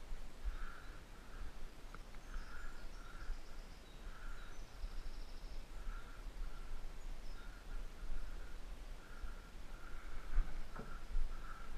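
A bird calling over and over in short notes, about two a second, with a few faint higher calls and a low rumble underneath.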